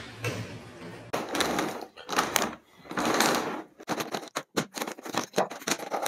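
Plastic Rubik's cubes being handled and shifted on a tabletop, with rough sliding and rustling at first. Then comes a run of quick clicks as the cube layers are turned.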